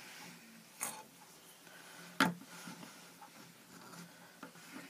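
Handling of a rubber-banded pencil frame on a wooden tabletop: two sharp knocks, the louder about two seconds in, with faint small ticks and rustles between.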